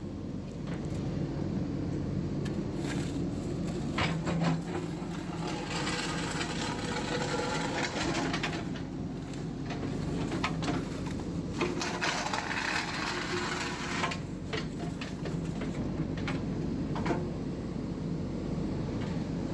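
Diesel engine of a JCB 3DX backhoe loader running steadily while working, with longer bursts of scraping noise twice and several sharp knocks.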